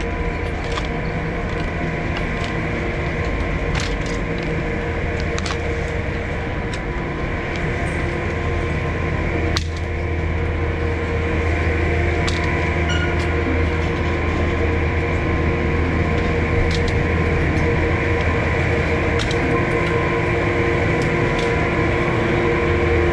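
Gondola lift station machinery running with a steady hum made of several constant tones, around the Leitner bullwheel and moving cabins. Short sharp clacks now and then from ski boots and skis on the metal floor grating.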